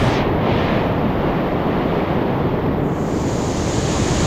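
Ocean surf breaking and washing up a sandy beach, a steady, continuous rush of water.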